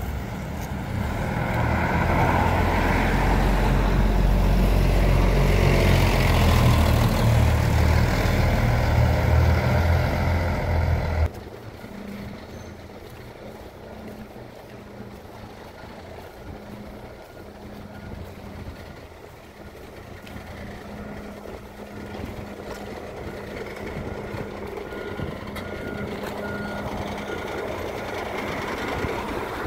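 A single-decker bus's diesel engine running loud as the bus pulls away close by. About a third of the way in the sound cuts off abruptly to a lower steady hum of idling bus engines, with a vehicle's reversing beeps repeating evenly, clearest in the second half.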